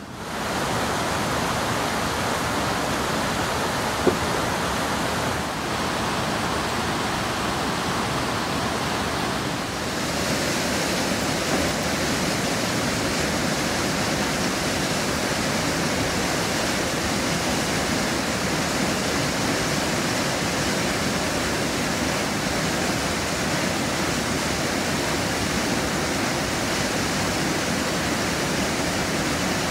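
Whitewater creek rushing through a narrow rock chute and cascading into a pool: a steady, even roar of water, with a single short click about four seconds in.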